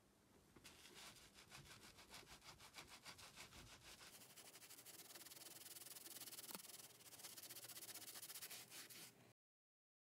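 Faint, rapid scrubbing of a cloth on a leather-wrapped steering wheel rim, several strokes a second, cutting off suddenly near the end.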